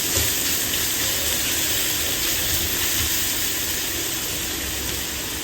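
Ginger garlic paste sizzling steadily in hot oil in a pan, easing slightly near the end.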